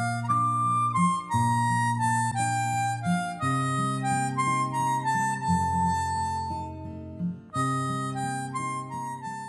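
Instrumental background music: a simple melody of held notes over sustained chords, with a brief pause about seven seconds in.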